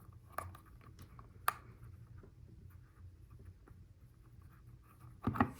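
Faint clicks and rubbing of a rubber LEGO Technic tire being forced onto its plastic rim, with two sharp clicks in the first second and a half and a louder brief sound near the end.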